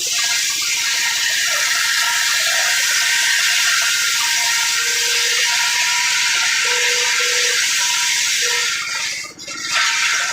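Circular saw cutting through wood with a steady, loud, high-pitched noise. The level dips briefly about nine seconds in, then comes back up.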